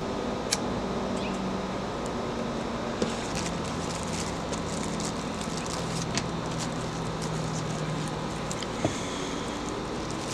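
Steady low background hum, with a few light clicks and rustles as small fingerboard parts and their plastic packaging are handled on a table.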